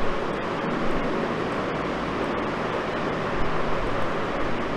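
Steady rushing background noise with a faint low hum underneath, level and unchanging: room noise picked up by the microphone.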